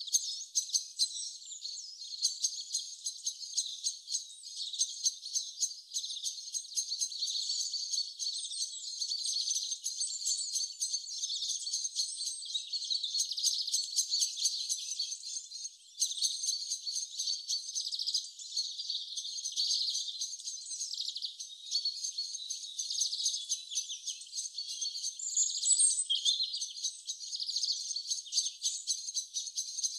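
Small birds chirping and twittering without a break, many quick overlapping chirps, thin and high with no low sound at all.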